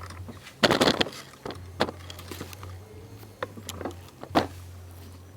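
Plastic air intake duct parts being handled and fitted by hand: a loud clatter about half a second in, then scattered clicks and knocks, over a steady low hum.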